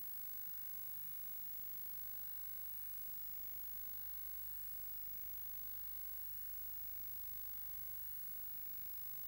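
Steady electronic hiss with a faint hum and thin high whines: recording self-noise with no distinct sound events.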